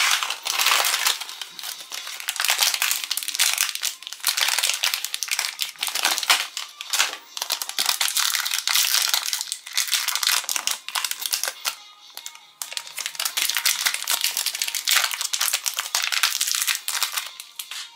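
Crinkly wrapper being peeled and torn open by hand, a continuous run of crackling rustles with a short lull about two-thirds of the way through.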